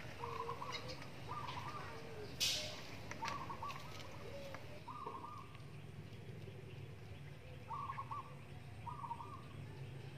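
Birds calling: a series of short, wavering calls repeated every second or two, with fainter, lower calls between them. A brief sharp rustle stands out about two and a half seconds in.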